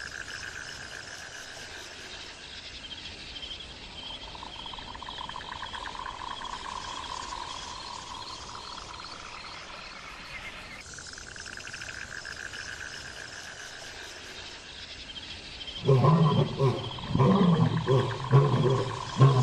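A steady outdoor wildlife chorus of high trilling calls. About sixteen seconds in, a lion breaks in with a run of loud, deep roaring grunts that lasts until the end.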